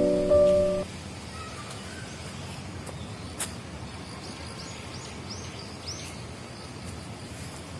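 Piano music stops about a second in, leaving steady outdoor background noise, with a quick run of short, high bird chirps around the middle and a single click a little before them.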